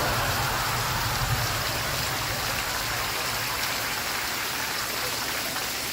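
Steady rain falling. Near the start a brief swell of noise rises over it and dies away within about two seconds.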